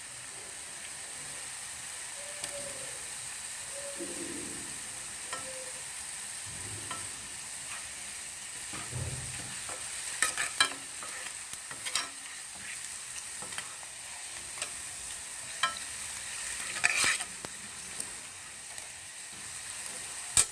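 Gram-flour-coated cauliflower pieces sizzling steadily in hot oil over a low flame, nearly fried through. Now and then a utensil clicks sharply against the pan, most often about halfway through and again near the end.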